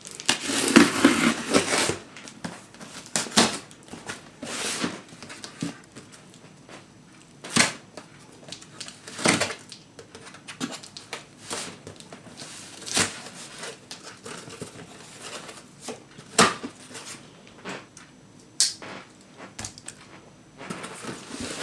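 Packaging being unwrapped and handled for an unboxing: irregular knocks and clicks with short bursts of rustling and tearing, busiest in the first two seconds.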